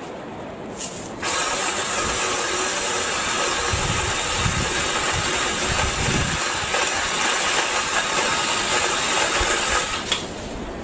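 BLACK+DECKER 18V battery-powered saw running and cutting through a tree branch. It starts abruptly about a second in, runs steadily for about nine seconds with heavier low thuds around the middle, and stops shortly before the end.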